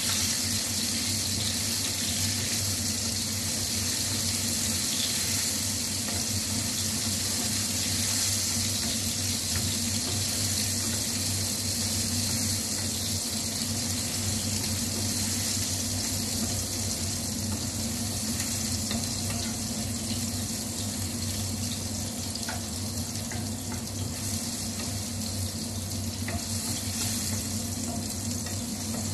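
Sliced garlic and chilli frying in hot olive oil in a pan: a steady, even sizzle that holds throughout.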